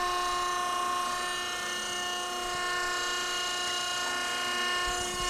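DiAcro hydra-mechanical press brake's electric motor and hydraulic pump running idle, freshly switched on: a steady machine whine made of several fixed tones.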